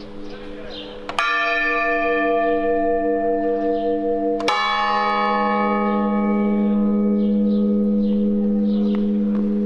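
Church bell of the Evangelistria church in Chios tolling slowly: struck once about a second in and again about three seconds later, each stroke ringing on in a long, steady hum. It is a slow toll of the kind rung for the Good Friday Epitaphios service.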